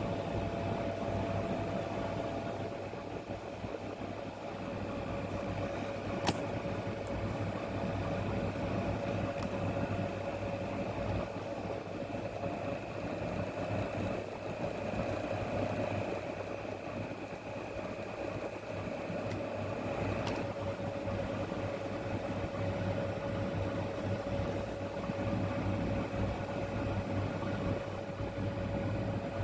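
Steady mechanical hum with a constant whining tone, with a sharp click about six seconds in and another around twenty seconds in.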